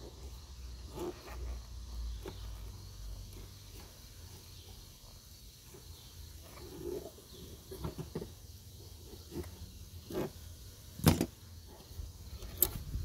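Flat-blade screwdriver prying at a plastic push-pin fastener that holds the tail lamp, making scattered light scrapes and clicks. A sharp click about 11 seconds in, and another near the end, as the fastener pops loose.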